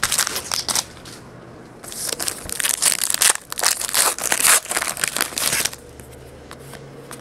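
Trading cards being handled and flipped through, with crinkling and rustling. The rustling comes in a short spell at the start and a longer run from about two to six seconds in.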